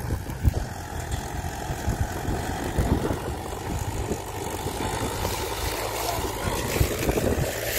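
Mahindra 575 tractor's diesel engine running hard as it pulls a heavily loaded sugarcane trolley, a steady low rumble with uneven low thumps.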